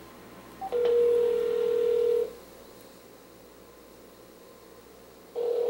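Telephone ringback tone through a cordless phone handset: a steady low tone lasting about a second and a half, a pause of about three seconds, then the tone starting again near the end. The call is ringing at the other end, not yet answered.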